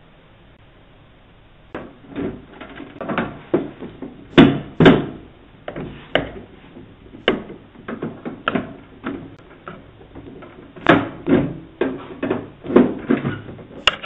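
A run of irregular knocks, bumps and rattles against a front door and its frame, starting about two seconds in, with two loud close knocks near the middle and another cluster near the end, heard through a doorbell camera's microphone.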